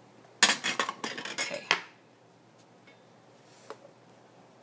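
A quick clatter of small hard makeup items, compacts and brushes, knocked together as they are rummaged through, lasting about a second and a half from about half a second in. One faint click follows later.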